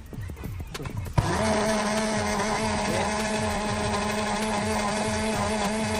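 Krisbow mini personal blender's motor switched on with a click about a second in, then running steadily at one pitch as it blends strawberries and a little water into juice.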